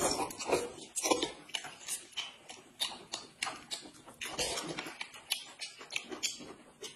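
Two people slurping noodles and chewing, a string of short, irregular slurps one after another, with a louder run about a second in and again near four and a half seconds.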